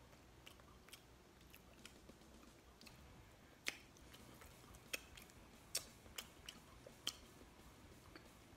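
Quiet close-up chewing: a person eating orange segments and honey bun, with scattered sharp mouth clicks and smacks, the loudest in a run from about three and a half to seven seconds in.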